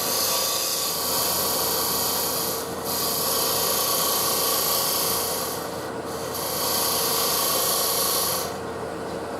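A scraper cutting a spinning maple burl bowl on a wood lathe: a rasping hiss of shavings in three passes, with short breaks about three and six seconds in, and the lathe's steady hum underneath. The cutting stops near the end.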